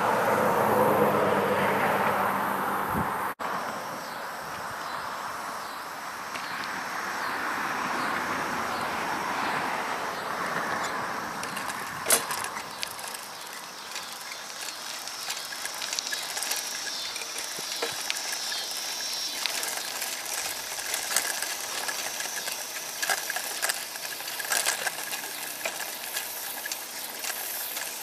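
Bicycle being ridden on an asphalt path: steady wind and tyre noise, with rapid ticking and rattling from the bike from about twelve seconds in.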